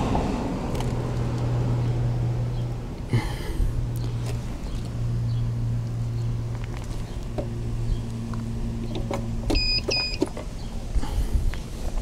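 Steady low electrical hum from a power inverter straining to start a mini dorm fridge's compressor, breaking off briefly twice, with a few clicks, then a double electronic beep about ten seconds in. The fridge's start-up surge, up to about 29 amps, is too much for the 20 amp charge controller, so it will not start.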